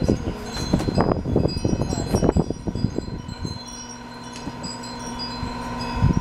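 Wind chimes ringing throughout, in many short, clear tones at different pitches. Between about one and two and a half seconds in there is a louder short run of voice sounds.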